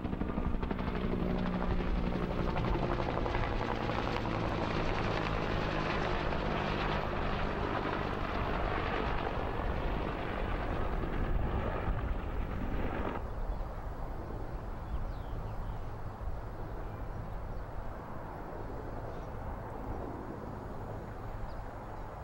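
Bell UH-1 Huey helicopter flying over: the rhythmic beat of its two-blade main rotor and the run of its turbine engine, loud as it passes close overhead. A little past halfway the sound drops suddenly to a fainter, duller rotor sound that fades as the helicopter moves off into the distance.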